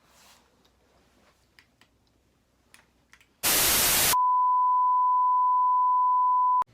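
A short burst of loud TV-style static, then a steady 1 kHz beep tone for about two and a half seconds that cuts off abruptly: an edited-in sound effect. Before it there are only faint small clicks.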